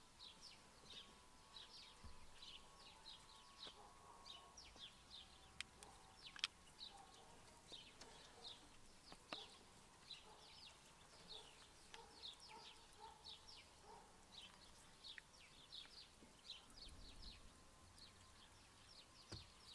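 Faint birdsong: a steady stream of many short, high chirps, with a few light clicks, the sharpest about six and a half seconds in.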